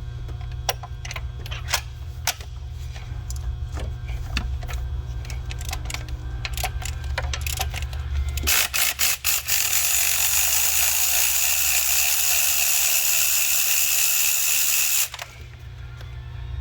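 Ratchet wrench clicking in short, irregular runs while working on spark plugs. About eight and a half seconds in, a loud steady hiss starts and cuts off suddenly some six seconds later.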